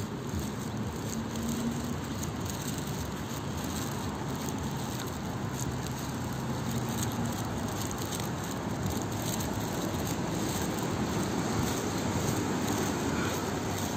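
Steady hum of distant road traffic, with faint scattered ticks over it.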